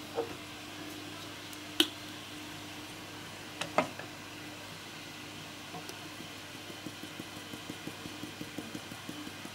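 Dried marjoram being shaken from a plastic spice shaker jar over a jug of cream: a run of quick, light, even taps through the second half, after a few sharp clicks in the first half, over a steady low hum.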